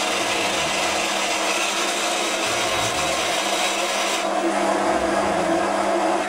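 Foreman TB1835 mini lathe running, its twist drill boring into the end of a spinning 304 stainless steel rod: a hissing cutting noise over the lathe's steady hum. The cutting noise eases about four seconds in.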